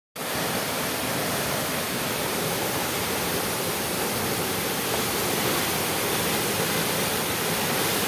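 Waterfall in heavy flow plunging into its pool: a steady, even rush of falling water.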